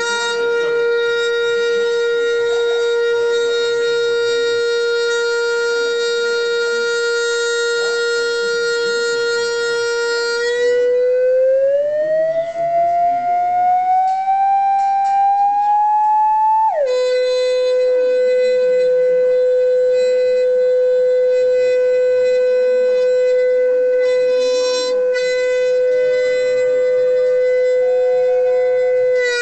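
Steady test tone, rich in overtones, driving a home-made wok hang drum to show its vibration modes as cymatic patterns. It holds one pitch, glides upward over about six seconds to nearly double the pitch about ten seconds in, then drops suddenly back down and holds steady again as the frequency is swept through the drum's resonances.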